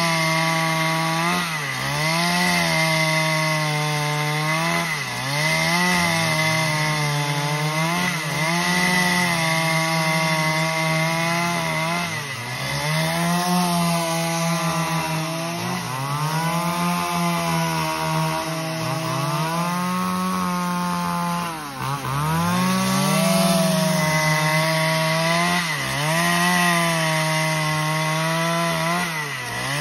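Two-stroke chainsaw running at full throttle, ripping lengthwise along a squared timber beam to cut a long plank. The engine pitch dips briefly and recovers every couple of seconds as the saw is fed through the wood.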